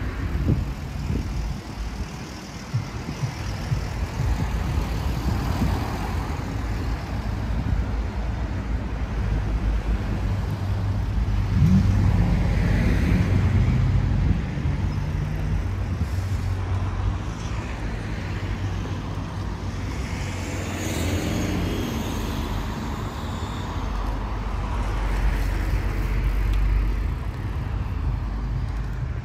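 Road traffic on a town street: cars passing over a steady low rumble, the loudest pass about twelve seconds in.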